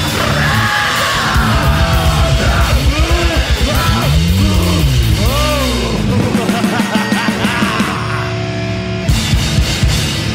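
Loud punk rock music played by a band: fast drumming under electric guitar, with notes sliding up and down in pitch.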